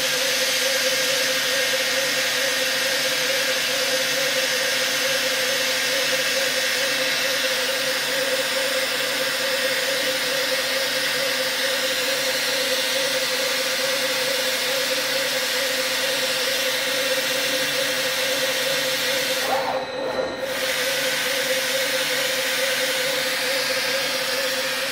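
FEBA F600 single-knife lathe slitter running, its rotating circular knife and drives giving a steady hiss with a constant hum-like tone. Near the end the hiss breaks off for under a second, then resumes.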